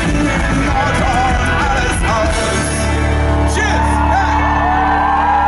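Live pop-rock band playing with sung vocals and a steady bass, heard through a concert PA; about three and a half seconds in, a long sung note is held.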